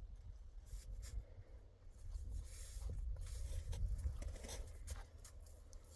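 Irregular scratching and rustling, like something being handled or scraped, over a steady low rumble.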